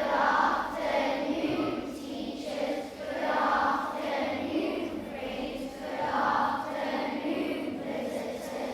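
A group of primary-school children singing together in unison, in phrases that swell and fall every couple of seconds.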